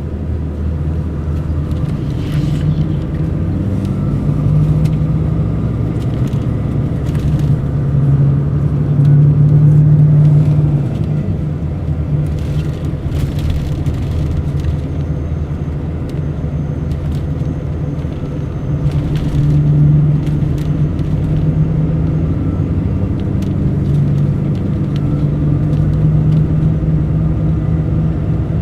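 Mercedes-Benz O500 RSD BlueTec5 coach's diesel engine running while under way, its steady tone growing louder and easing off several times, with scattered light rattles.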